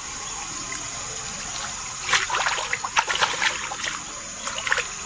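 Water splashing in irregular bursts as a hooked carp thrashes at the surface while being played in, starting about two seconds in, with a short second burst near the end.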